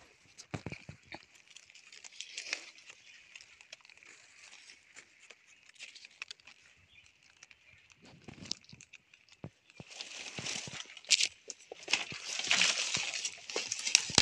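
Dry leaf litter and twigs on the forest floor rustling and crackling, with scattered snaps. About ten seconds in it grows louder and denser.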